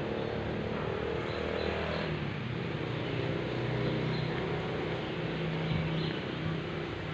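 Road traffic: a motor vehicle's engine running as it passes, a steady hum whose pitch shifts slowly.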